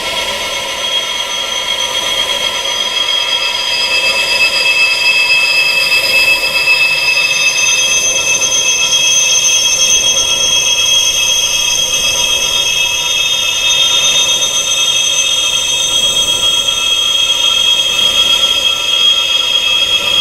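Wind chimes tuned to tinnitus frequencies ringing without pause, many high tones overlapping into a steady, sustained wash. It grows a little louder over the first few seconds.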